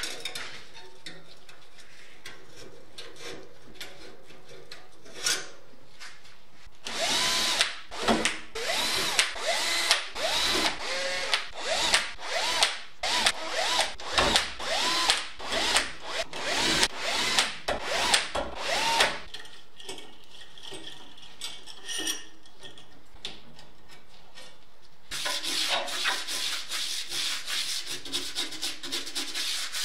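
Cordless drill driving the spoke nipples onto a bicycle rim in repeated short trigger runs, its motor whine rising and falling with each run. Faint metal clinks of spokes being handled come before it. Near the end comes the scratchy rubbing of a stiff brush scrubbing the rim.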